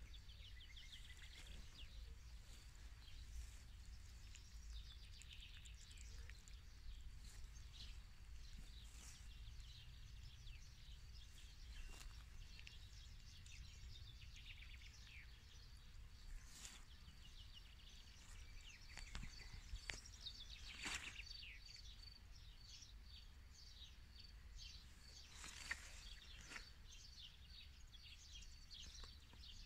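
Faint outdoor ambience with small birds chirping and twittering throughout, and a thin steady high tone in the second half. There are a few soft clicks and a low rumble underneath.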